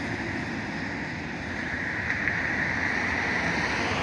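Road traffic going by: a steady rush of tyre and engine noise from vehicles on the street, swelling a little in the middle.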